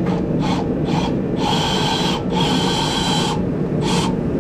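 Portable band saw run in several short bursts, the two longest near the middle, over a steady low hum.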